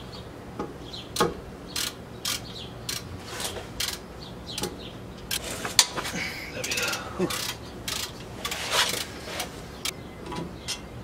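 Hand ratchet clicking in short, uneven strokes on the 17 mm caliper bolts of a Lexus IS300's rear brake. About two-thirds of the way in come stretches of metal scraping as the rust-stuck caliper is worked free of the rotor.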